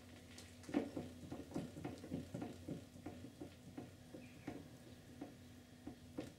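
Dirt bike rear shock linkage knocking in light, quick clicks, about three a second, as the rear wheel is pulled up and let down on a stand. The knocking is free play in the lower shock linkage bearing.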